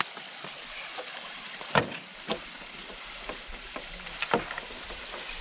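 Scattered knocks and rustles of people moving through brush and over a fence, over a steady outdoor hiss.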